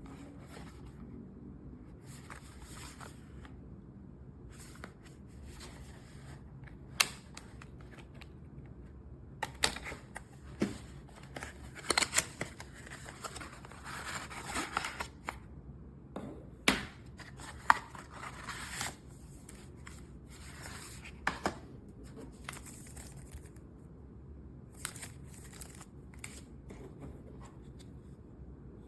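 Scattered sharp clicks and rustling of small objects being handled, over a steady low hum; the handling is busiest in the middle, with a few louder clicks.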